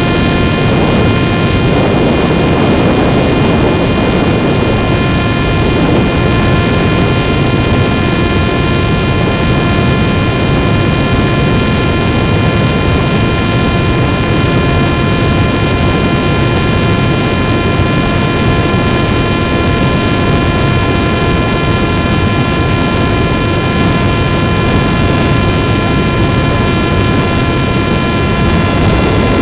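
Skywalker RC plane's motor and propeller running at a steady, unchanging pitch, with wind noise rushing over the onboard camera's microphone.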